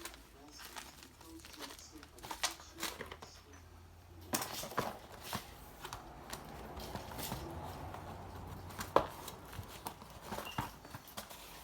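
Packaging being handled and opened: crinkling and rustling of wrapping with scattered small clicks, and one louder sharp knock about nine seconds in.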